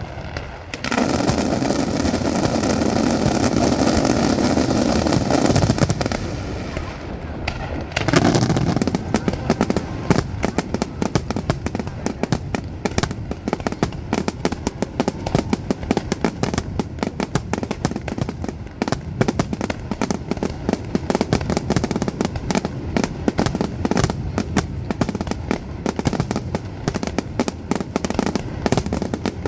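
Fireworks display going off. A dense, loud rushing burst comes about a second in and lasts some five seconds. From about eight seconds in, rapid crackling pops and bangs follow one another almost without a break.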